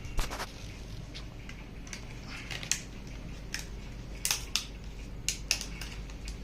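Scattered small clicks and taps of hands working at a laptop's memory slot, releasing a SO-DIMM RAM stick from its clips.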